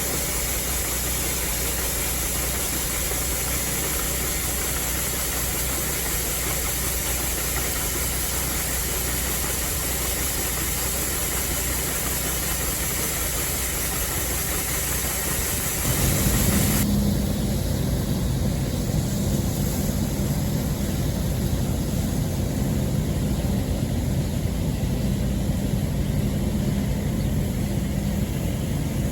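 Harvest machinery running steadily: the Allis-Chalmers WD45 tractor with the All-Crop 72 pull-type combine, its engine hum under a steady hiss. About halfway through, the sound shifts to a louder, deeper engine note with less hiss.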